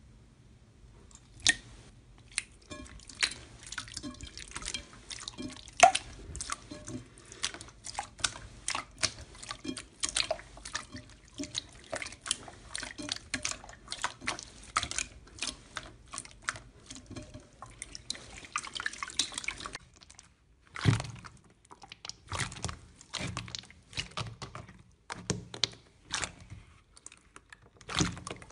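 Hands squeezing and kneading thick slime in a bowl, with dense, irregular wet clicks and pops from trapped air. There is a short pause about twenty seconds in before the squishing picks up again.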